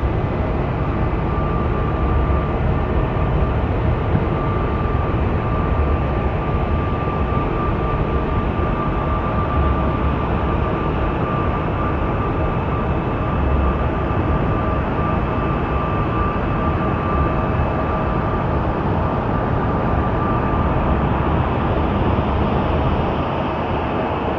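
Jet airliner engines running, a steady rushing noise with several constant whining tones; the hiss brightens a little near the end.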